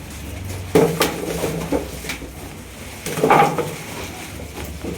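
A handful of irregular knocks and clatters from new tennis-ball cricket bats being handled and set down, loudest a little past the middle.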